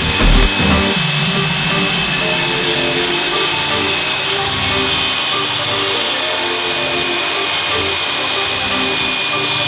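A power tool's electric motor running steadily, with a constant high whine.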